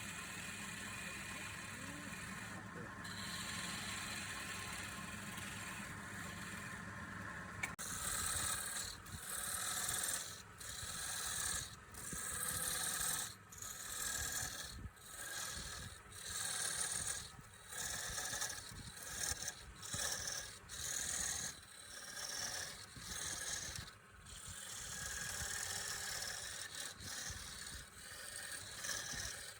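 Wood lathe running steadily with a hum; about eight seconds in, a tool starts working the spinning wood in repeated rasping passes, about one a second.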